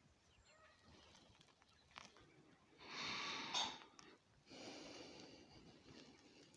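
A person's slow breath in, then a softer breath out, with a faint click just before; otherwise near silence.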